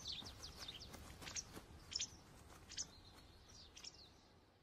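Forest birds chirping: short, high calls every half second to a second over faint outdoor ambience, fading out shortly before the end.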